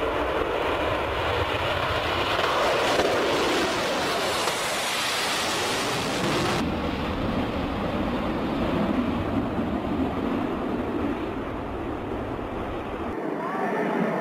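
Concorde's Olympus 593 turbojets at full takeoff power with reheat: a steady jet roar as the aircraft lifts off and climbs away. The roar changes abruptly about six and a half seconds in, losing its hiss, and again near the end, losing its bass.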